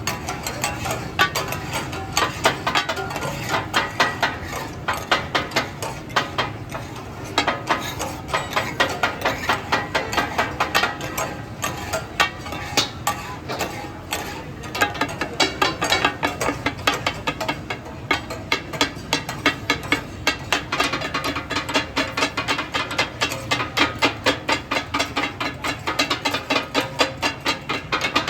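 Metal spatulas chopping and clanging on a steel tawa griddle in fast, rhythmic runs of clatter, several strikes a second, with short pauses: the clatter that gives katakat its name, as the offal is chopped and tossed.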